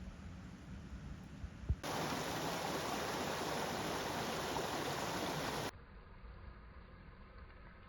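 Steady rush of flowing stream water that cuts in abruptly about two seconds in and cuts off just as suddenly about four seconds later.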